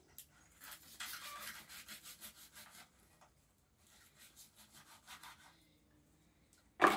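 Knife cutting through roasted meat on a wooden board: a run of quick rasping strokes, about four a second, then a few fainter cuts a couple of seconds later. A louder sharp knock comes at the very end.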